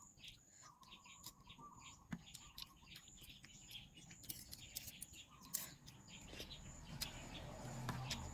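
Close-up chewing and mouth clicks from eating wide rice noodles in gravy (rad na). Faint high chirps repeat about twice a second in the background.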